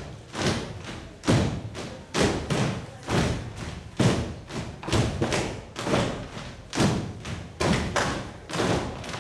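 Children's kolo dancers stamping and stepping in unison with no music, a heavy stamp of many feet about once a second with lighter steps between.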